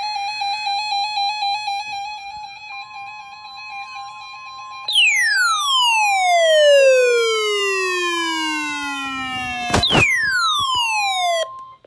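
Weather-radio emergency alert tones: short data-burst header chirps over a wavering tone, then the steady single-pitch warning alarm tone starting about three seconds in. Two loud falling whistle-like glides with many overtones sweep down over it about five and ten seconds in, the second with a sharp crack, and cut off shortly before the alarm tone ends.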